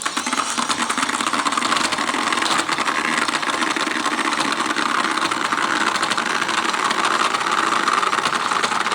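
Small battery-powered motor of a mini toy washing machine switched on and running steadily, spinning its tub of soapy water. It starts abruptly and the motor noise stays even throughout.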